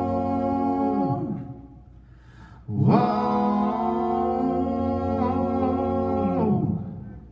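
Vocal group humming a held close-harmony chord that slides down in pitch and fades about a second in, then a second held chord from about three seconds in that ends with the same downward slide.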